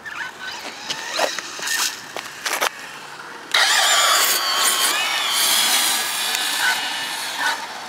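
Electric RC drag cars with brushless motors launching off the line. About three and a half seconds in comes a sudden loud burst of motor whine and tyre noise that holds for several seconds as the cars run away down the strip. A few short bursts come before it.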